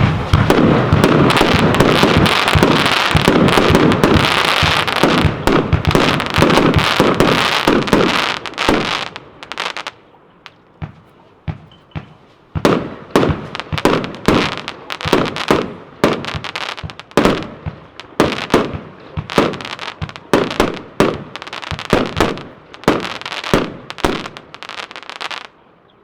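Funke Evolution "Snowstorm" firework cake firing. A dense, continuous volley of shots and crackling bursts for about nine seconds, then after a brief lull a steady series of single shots, roughly two a second, which stops shortly before the end.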